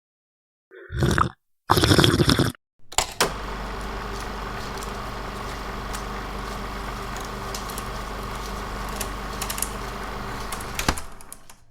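A couple of short noisy bursts, then a 16 mm film projector running steadily: motor hum with a faint clicking of the film advance, stopping about 11 seconds in.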